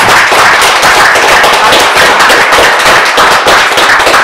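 Audience applauding, loud and steady clapping from many hands.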